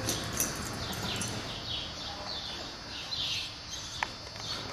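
Birds chirping: short falling chirps repeated about twice a second, with one sharp tick about four seconds in.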